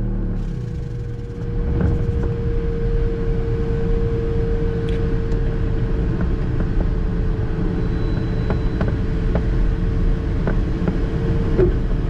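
Ventus cT glider's two-stroke sustainer engine and propeller running steadily in flight, a continuous drone with a steady hum, heard from the cockpit. It is being test-run after repairs.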